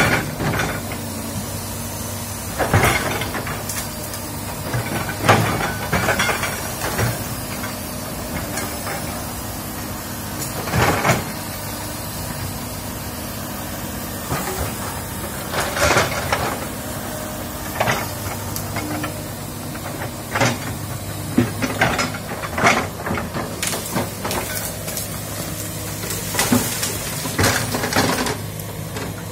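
Komatsu hydraulic excavator's diesel engine running steadily under load, with scattered sharp cracks and crunches as the bucket breaks through brush and wood, coming thicker near the end as a tree stump is torn out by the roots.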